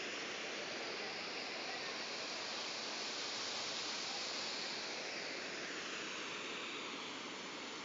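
Steady rushing of the Siete Tazas waterfalls on the Río Claro, an even hiss of falling water with no breaks.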